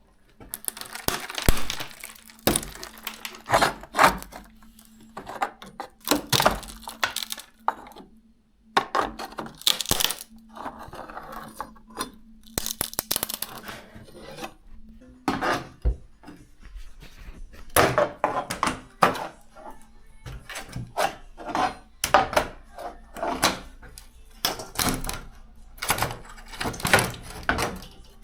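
Repeated knocks, cracks and clatter of old wooden floorboards being pried up and broken out, with a steady low hum under the first half.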